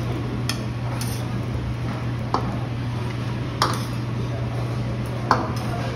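Metal spatulas tapping and scraping on a teppanyaki griddle while fried rice is turned: a handful of sharp clicks, the loudest near the middle and about five seconds in, over a steady low hum.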